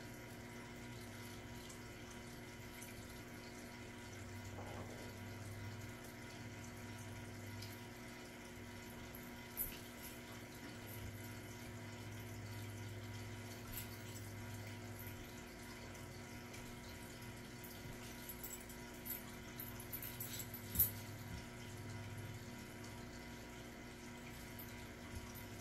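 Steady low hum and hiss of room noise, with a few faint taps and rustles scattered through it, the sharpest about three quarters of the way in.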